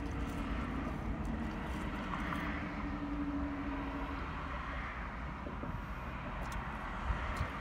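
Steady background noise inside a car: a low rumble under an even rushing hiss, with a faint steady hum that fades out about four seconds in and a few faint clicks near the end.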